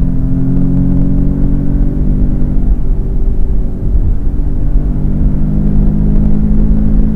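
Audi S3's turbocharged 2.0-litre four-cylinder engine accelerating at motorway-plus speed, heard from inside the cabin: its note rises over the first couple of seconds, eases back while the speed holds, and climbs again near the end. A steady low rumble of tyres and wind runs underneath.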